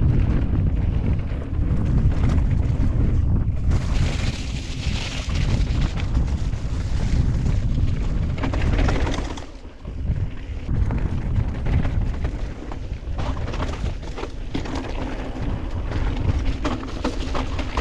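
Wind buffeting the microphone of a camera on a mountain bike descending a dirt trail, with rolling tyre noise; there is a stretch of louder hiss about four to nine seconds in, a brief lull near ten seconds, and quick clicks and rattles over rough ground near the end.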